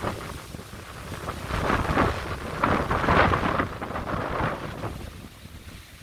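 Gusty storm wind rushing through trees and bushes, with low buffeting rumble from wind on the microphone. The gusts swell loudest about two to three seconds in, then ease toward the end.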